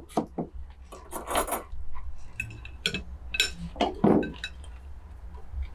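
Ceramic bowls clinking and knocking as they are set down on the table and stacked, with a few sharp clinks that ring briefly.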